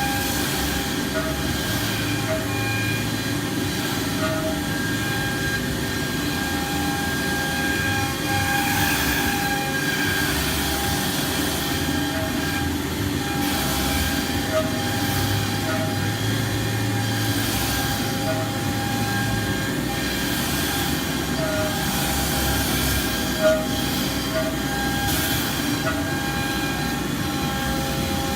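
CNC router machining a sheet: a steady machine hum with several steady whining tones over a rushing noise, from the spindle, the vacuum pumps holding the sheet and the dust collection. A single sharp tick about three-quarters of the way through.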